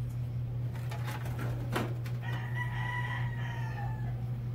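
A rooster crowing once, one long call starting about halfway through and tailing off, over a steady low hum; a sharp click sounds just before the crow.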